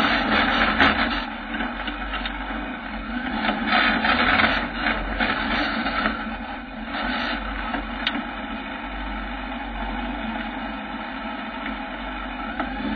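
Kawasaki ZX-9R inline-four motorcycle engine in a 4x4 buggy running at low revs as the buggy crawls over rock and snow, heard from a camera mounted on the frame, with scattered knocks and rattles from the chassis.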